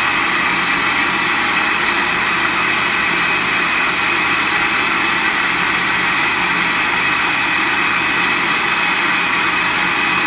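Countertop blender running at a steady high speed with a steady motor whine, churning a jar full of thin strawberry-lemon juice.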